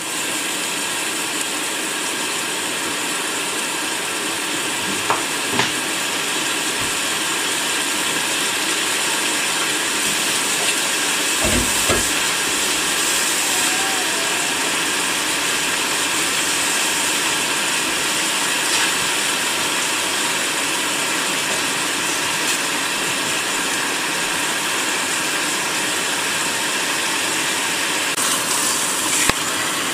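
Turkey legs sizzling steadily in hot oil in a stainless steel pot, searing with onions and garlic.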